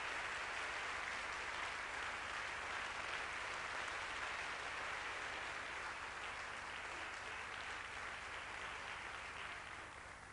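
Audience applauding, slowly dying down and fading out near the end.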